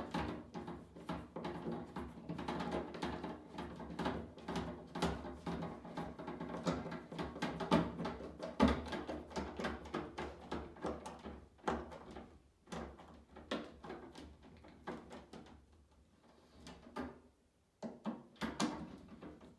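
Screw being turned in by hand with a Phillips screwdriver through a wire basket's hanger into the wall: a dense run of small clicks and metal knocks from the screwdriver and basket. The clicks thin out for a few seconds near the end.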